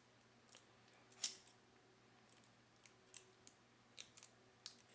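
Thin aluminium from a soft-drink can crinkling and clicking as it is folded by hand: several small, sharp clicks spread out, the loudest about a second in.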